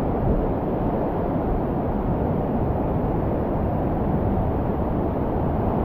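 Steady, deep rushing of white water on the river Una, an even roar with no breaks.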